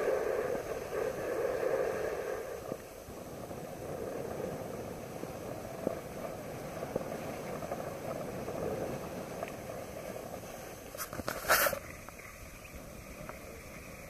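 Skis sliding and scraping over packed snow during a downhill run, a steady rushing noise that is louder in the first few seconds. A short, loud burst of noise comes about eleven seconds in.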